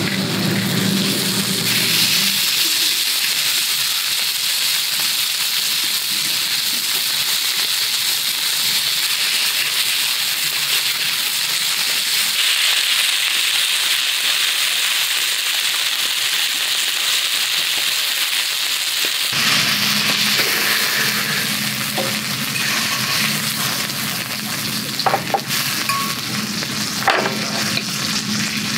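Slices of meat searing in a hot frying pan, a steady loud sizzle. Near the end come a few sharp clicks of metal tongs against the pan as the meat is turned and lifted out.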